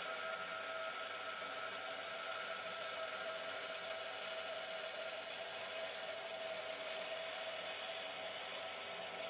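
Makita LB1200F band saw running at a steady whine, its blade ripping a wooden board fed slowly along the fence.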